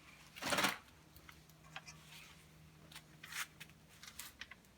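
Small steel washers and nuts being handled and set down by hand: a brief scrape about half a second in, then a scatter of light clicks and short rattles.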